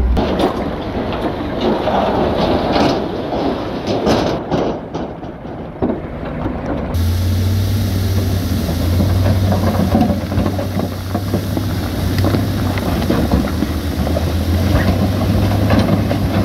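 Dump truck tipping its load: rocks and earth tumbling and sliding out of the raised bed, with many short cracks and knocks over a rumble. About seven seconds in, the truck's engine is heard running with a steady low drone under the sliding load.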